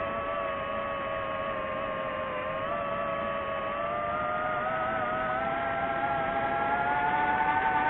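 DJI FPV drone's motors and propellers whining steadily, the pitch and loudness climbing slowly through the second half as the throttle is raised.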